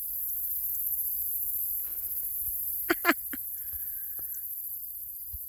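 Steady high-pitched chorus of field insects chirring in summer grass, with a couple of brief sharp sounds about three seconds in.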